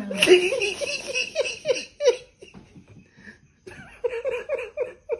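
Hearty laughter in two bouts of quick, repeated 'ha-ha' bursts, with a pause of about a second and a half between them.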